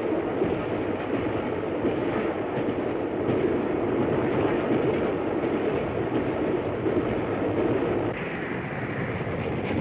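Express steam train running at speed: a steady, dense rumble of the locomotive and its carriages on the track. The sound brightens a little about eight seconds in.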